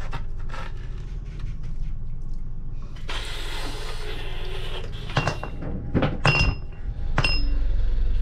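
A knife cuts oranges on a wooden board, then an orange half is ground on a plastic hand juicer, with a steady low hum underneath. Near the end come a few sharp clicks with short high beeps, and the low hum grows louder.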